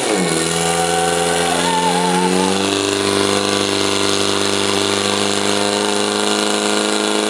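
Portable fire pump's engine running at high revs under load as it pumps water out to the hoses, holding a steady pitch that steps down slightly about two and a half seconds in.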